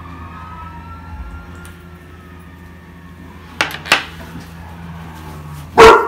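Makeup items being handled and put down on a table: two light clicks about three and a half seconds in, then a loud knock near the end as something is set down hard.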